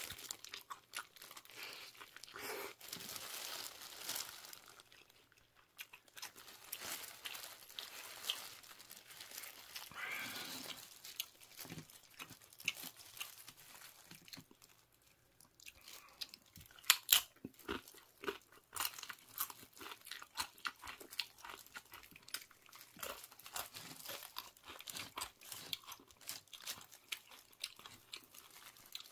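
Close-miked crunching and chewing of tortilla chips, irregular crisp cracks with the loudest bites a little past halfway. Crinkling of a plastic glove and paper wrapper as the chips are handled.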